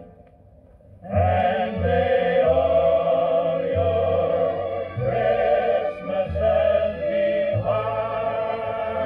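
Vocal music with a choir playing from a 45 rpm vinyl record on a 1960s HMV record player. The music dips into a short lull, then comes back in about a second in.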